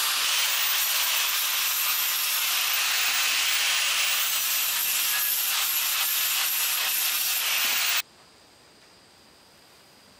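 Handheld electric sander running against a small wooden block, a steady loud hiss with a faint high whine, which cuts off suddenly about eight seconds in, leaving only quiet background.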